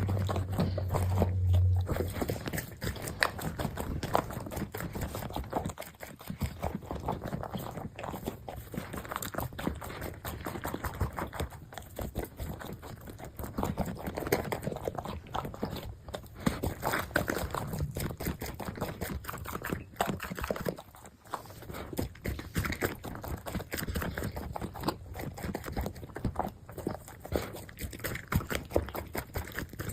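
Golden retriever crunching and chewing dry kibble, a dense, irregular run of crunches. A steady low hum sounds for the first two seconds.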